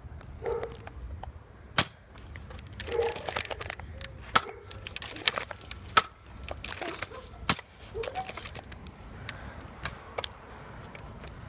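Sharp snaps and clacks of Nerf foam-dart blasters in a dart fight, about a dozen at irregular intervals, a few of them much louder than the rest, with brief shouts in between.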